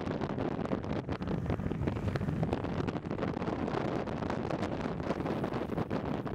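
Heavy wind buffeting on the microphone at speed over the rolling rumble of longboard wheels on asphalt, with many short ticks from the road surface.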